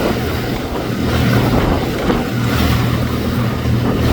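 Motorboat engine running steadily, a low even hum, with wind buffeting the microphone.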